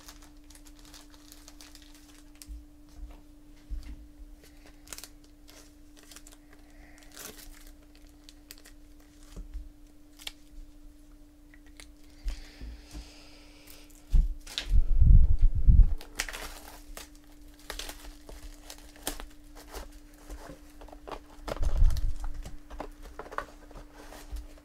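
Trading-card hobby box being unwrapped and opened by hand: scattered crinkling and tearing of plastic wrap and cardboard, with heavier knocks and bumps of the box for over a second just past the middle and again shortly before the end.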